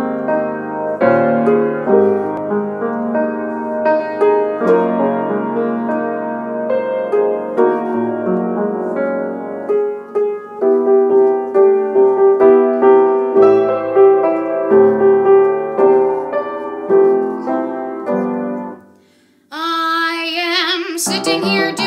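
Solo piano playing the introduction to a show tune, with chords and a melody line. Near the end the piano stops for a moment, then a woman's voice comes in on a held note with vibrato as the piano resumes.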